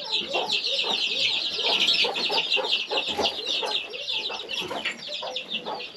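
Many chicks peeping in rapid, continuous high chirps, with lower clucking from chickens among them.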